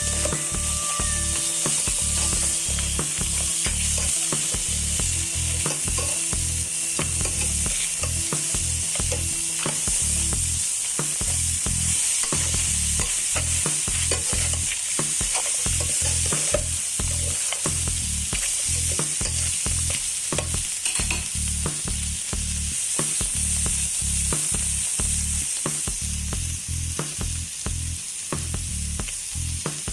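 Crabs sizzling steadily in a hot pan, with many small clicks from stirring.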